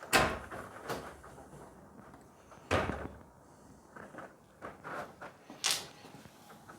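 Garage door and bracket hardware clunking: three sharp knocks, at the start, near the middle and near the end, with lighter clicks and taps between, as the wheel is set onto the bracket.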